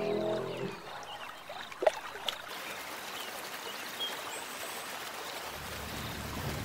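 Water splashing and trickling, with two sharp splashes about two seconds in and then steady lapping.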